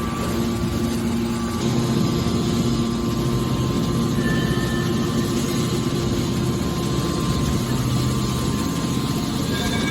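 Hydraulic baler machine running: a steady mechanical hum with a low drone and no sudden impacts.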